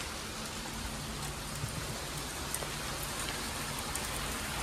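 Steady rain falling on a catamaran's deck, with a few sharper ticks of single drops.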